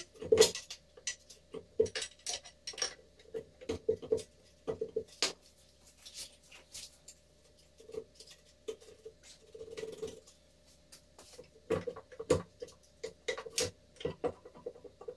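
Ratchet wrench clicking in short, irregular runs, with sharp metal clinks of tools on the casing, as bolts are undone while dismantling a backhoe-loader gearbox.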